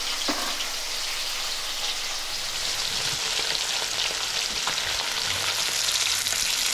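Fish steaks sizzling and crackling steadily as they shallow-fry in mustard oil in a metal kadai, with a few faint clicks as tongs turn them.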